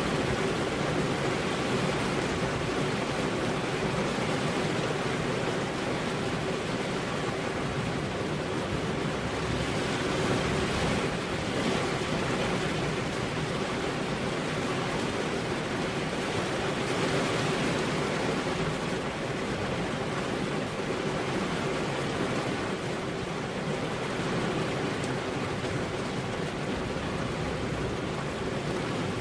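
Steady rain, an even hiss that swells slightly a couple of times.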